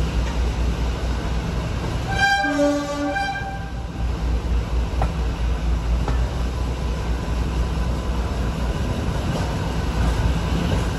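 Horn of Class 52 diesel-hydraulic D1015 'Western Champion' sounding once, briefly, about two seconds in, over the steady rumble of the train running.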